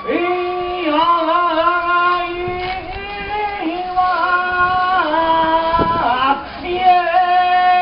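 High young voices singing a float-festival chant in long, drawn-out held notes with slight wavers in pitch, breaking briefly about six seconds in before the next phrase.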